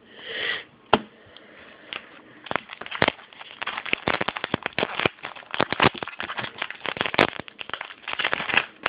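Trading cards and a crinkly foil pack wrapper being handled: a dense run of quick crackling and rustling that starts about two and a half seconds in.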